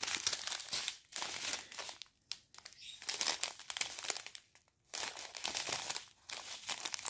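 Clear plastic zip-lock bags of diamond painting drills crinkling as fingers handle and turn them, in several bursts with short pauses between.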